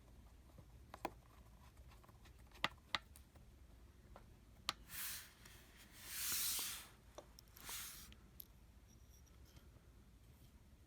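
A few sharp little clicks of small laptop parts and screws being handled on a bench, then three short hisses about five seconds in, the middle one the longest and loudest.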